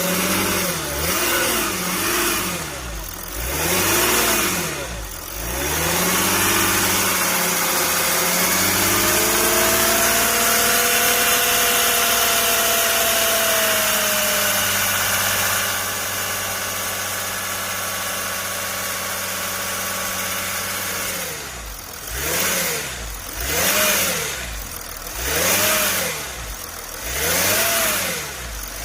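Mercedes OM642 3.0-litre V6 diesel engine blipped several times, held at raised revs for about fifteen seconds, then blipped about five more times. The rattle in it is put down by the owner to the high-pressure fuel pump.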